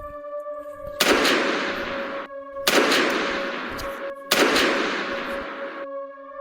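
Three gunshots, each a sudden loud bang with a long fading tail, about a second and a half apart, over a steady droning music bed.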